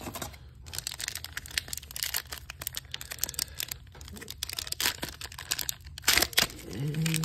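A foil booster-pack wrapper of trading cards being torn open by hand: a run of crinkling and crackling, with louder, sharper rips about five and six seconds in.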